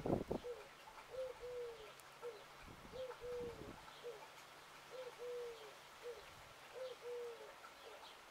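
A dove cooing over and over in a steady, repeated phrase: a short note, a longer held note, then a short note, about every two seconds. A few low thumps come right at the start.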